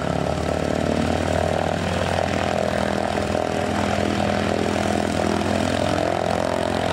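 Piston engine of a propeller aircraft running steadily on the ground, with an even, unchanging pitch.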